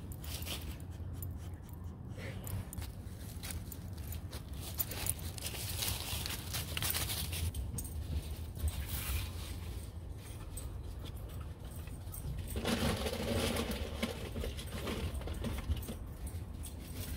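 Dry hay rustling and scraping as it is shaken from a plastic scoop into a ceramic bowl, with light clinks. The sound comes in two longer spells of rustling.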